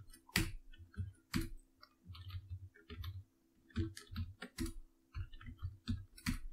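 Computer keyboard keystrokes in an irregular run of clicks, a few strokes much louder than the rest, as line breaks are deleted to join lines of code. A faint steady hum runs underneath.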